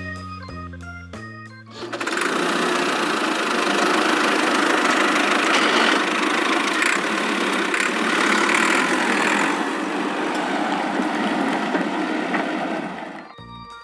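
Background music with plucked notes, then a sudden switch about two seconds in to a loud, steady, rattly machine-engine sound effect that runs for about eleven seconds before cutting off.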